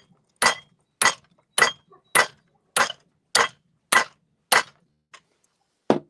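A hammer striking the steel of a freshly hardened and tempered square punch clamped in a vise: eight sharp metallic blows, about one every 0.6 s, not hit hard, then a faint tap and a duller knock near the end. It is a break test of the punch's temper, and the tip does not snap.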